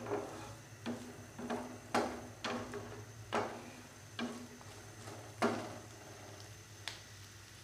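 Wooden spatula stirring diced capsicum, carrot and corn in a nonstick frying pan: irregular scrapes and taps every half second to second as the vegetables are lightly fried in butter. A steady low hum runs underneath.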